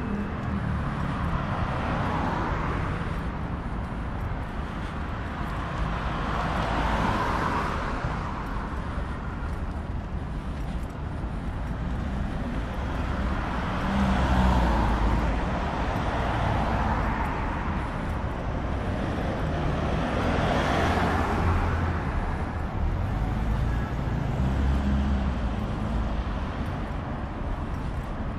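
Road traffic: cars passing one after another, about six in all, each swelling and fading away over a steady low rumble.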